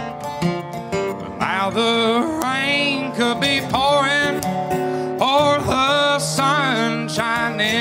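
Live country song: a resonator guitar and an acoustic guitar strumming together, with a man's singing voice coming in over them about a second and a half in.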